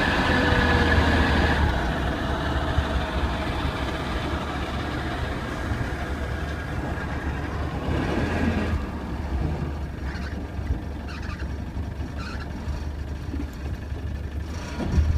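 Car engine and drivetrain running with a steady low drone. A high whine sounds for the first second or so, then fades, and the sound eases off after about nine seconds.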